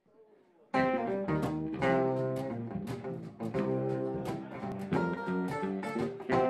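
Acoustic guitar played with chords, starting about a second in: sharp regular strokes whose notes ring on between them.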